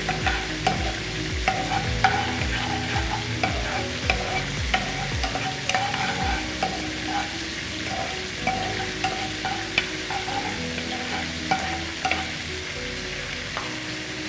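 A spatula stirring in a non-stick frying pan, with repeated light taps and scrapes against the pan, denser in the first few seconds, over a steady frying sizzle.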